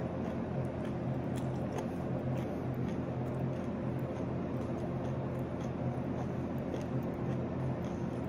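A person chewing a whole lemon, peel and all, close to the mic: wet, squishy mouth sounds with small scattered clicks. A steady low hum runs underneath and is the loudest thing throughout.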